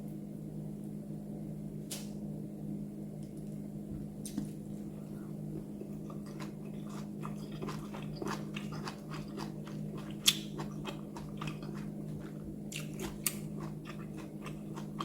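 A person chewing and biting food, with soft crunches and many small clicks that grow busier partway through, over a steady low hum.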